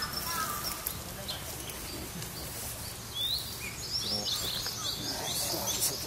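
Small wild songbirds calling in the trees: short high chirps scattered throughout, with a quick run of descending notes near the end.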